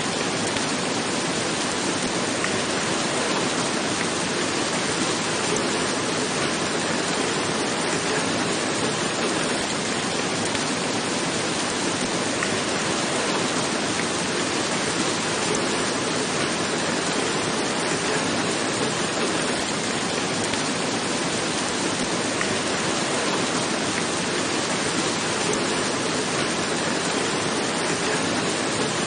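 Steady rain falling on a roof, an even continuous hiss.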